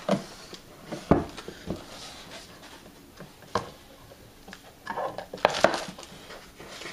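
Plastic wine pump unit and its parts being handled and set down on a wooden table: scattered knocks and clicks, the loudest about a second in. Around five seconds in there is a short burst of rustling and knocking as more parts come out.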